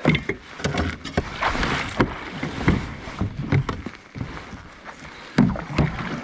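Kayak paddle strokes: the blades dip and splash in the water on alternate sides, with irregular knocks of the paddle and gear against the plastic hull.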